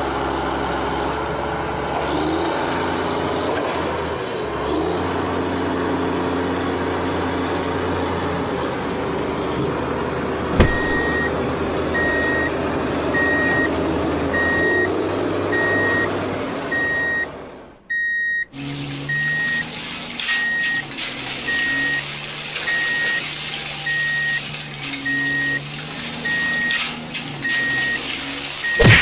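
Truck engine running steadily, with a back-up alarm beeping about once every 0.7 s from about a third of the way in. A sharp click comes as the beeping starts. Just past halfway the engine sound drops out briefly and comes back with a changed, uneven note.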